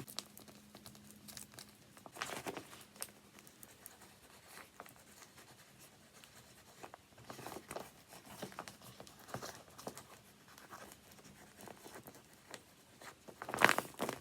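Homemade paper squishy being squeezed and handled, its paper crinkling and rustling in soft, irregular crackles, louder near the end.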